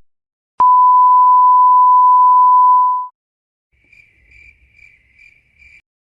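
A loud, steady sine-wave beep of the kind used as a censor bleep, held about two and a half seconds. It is followed by a faint, higher tone that pulses five times.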